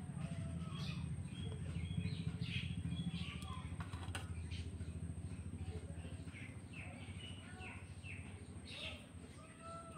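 Small birds chirping: many short, high calls scattered throughout, over a steady low hum that weakens after about three seconds.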